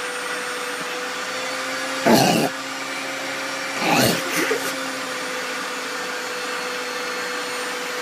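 Vacuum cleaner running steadily with a constant hum through its narrow nozzle. Twice, about two and four seconds in, a louder sucking slurp as a Saint Bernard puppy's mouth and tongue close over the nozzle.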